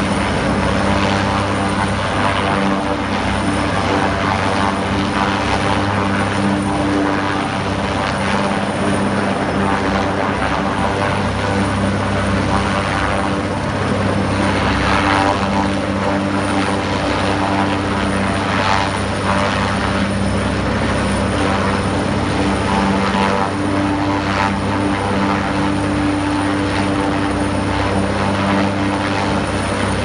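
Helicopter rotor and engine running steadily at close range, a constant low hum with swells of broader noise now and then, as it works a sling lift of rooftop HVAC units.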